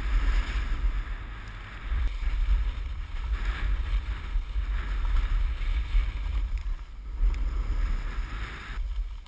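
Wind buffeting an action camera's microphone as a snowboard rides downhill, with the changing hiss of the board's base and edges scraping over groomed snow. The scraping hiss drops away shortly before the end.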